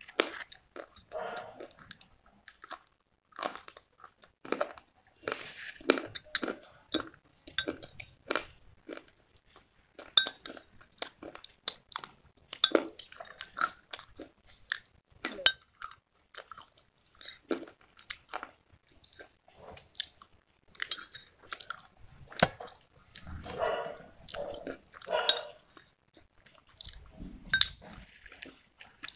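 Slate pencils being bitten and chewed close to the microphone: sharp, brittle crunches at irregular intervals, with stretches of grinding chews between bites.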